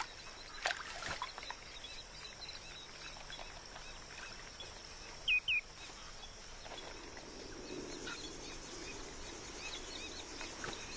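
Outdoor wetland ambience with a steady high hiss, and a bird giving two quick short chirps about five seconds in.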